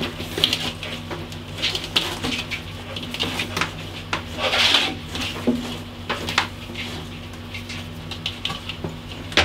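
Loose red and black electrical cables being coiled and handled by hand: scattered light rustles, scrapes and clicks, over a steady low hum.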